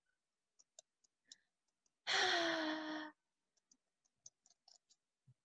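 A person's long, heavy sigh about two seconds in, a breathy exhale with a slight voiced tone that sinks in pitch. Faint scattered clicks come before and after it.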